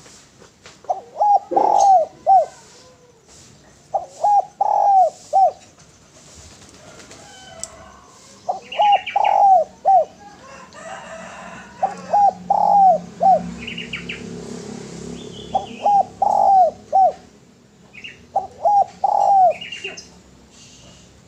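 Spotted dove cooing: six short phrases of three or four notes each, the middle note longest, repeated every three to four seconds. Higher chirps from other small birds fall between the phrases.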